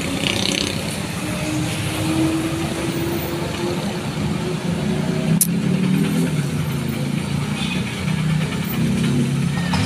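Road traffic going past: cars and motorcycles in a steady mix of engine and tyre noise, with a faint falling engine tone as one vehicle passes early on. There is one brief sharp click about halfway through.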